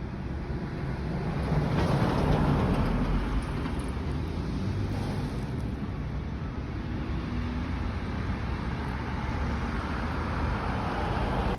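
Coal train running past, a steady rumble and rattle that grows louder about a second and a half in.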